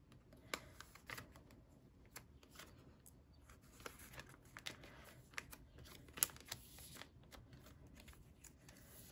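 Photocards being handled and slid into clear plastic binder sleeve pockets: faint scattered clicks and plastic rustles, the sharpest a little past six seconds in.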